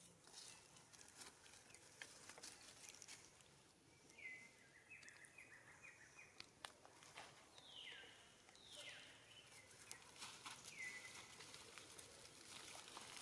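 Faint crackling of dry leaves in grass, with a bird calling: a quick run of short high chirps about four seconds in, then two longer falling calls a few seconds later and one more near the end.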